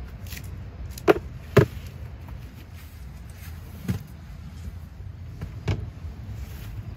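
Several separate knocks: two loud ones about half a second apart about a second in, then fainter single knocks near four and six seconds, over a steady low rumble.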